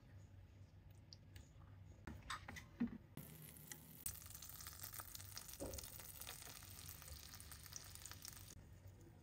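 Melted butter sizzling and spitting in a hot nonstick frying pan. It starts about three seconds in, after a few light knocks, and cuts off shortly before the end.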